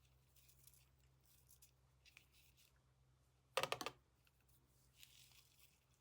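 Scissors snipping tulle ribbon: one short, sharp snip about three and a half seconds in, with faint rustling of the ribbon being handled around it.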